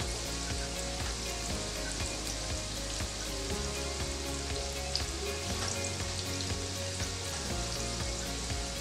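Saltfish fritters frying in hot vegetable oil in a pan: a steady sizzle and bubbling.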